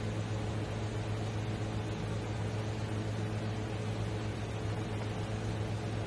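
Steady low electrical hum with an even hiss over it, unchanging throughout.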